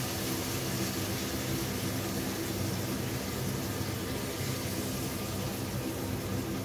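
Wine and water bubbling and sizzling around browned chicken pieces in a frying pan on high heat, a steady sound with a low hum underneath.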